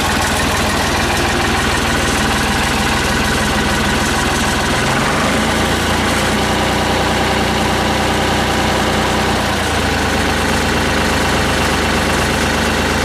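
Ford 3000 tractor engine idling just after being started, its note shifting slightly about five seconds in.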